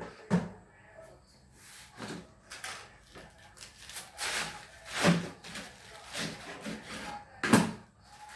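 Kitchen knife cutting a cabbage on a wooden chopping board: irregular knocks of the blade hitting the board, with the crunch and rustle of cabbage leaves being sliced between them.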